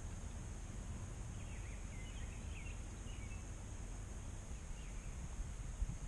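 Outdoor field-edge ambience: a steady low rumble of wind on the microphone, with a few faint, distant bird chirps in the first half.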